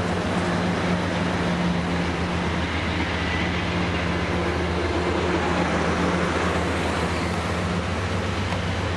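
Amtrak Pacific Surfliner bi-level passenger cars rolling past on the rails as the train pulls out, a steady rumble of wheels with a low, even hum underneath.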